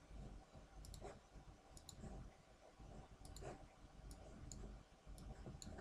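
Faint computer mouse clicks, about a dozen in ones and pairs, over near silence.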